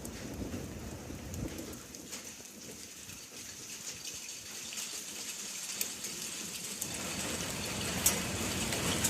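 Rain falling steadily, with scattered sharp ticks of single drops, getting louder over the last few seconds.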